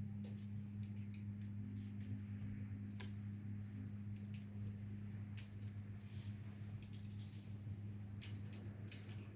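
Scattered light metallic clicks and taps of hand tools and small parts being worked, over a steady low hum.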